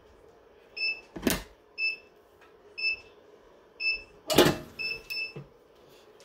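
Heat press timer beeping, short high beeps about once a second with the last two close together, signalling the end of the press time. Two loud noisy bursts break in, one about a second in and a louder one about four and a half seconds in, as the swing-away heat press is opened.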